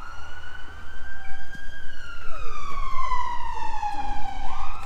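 A siren wailing: the pitch climbs and holds high, slides slowly down over about two seconds, then sweeps sharply back up near the end.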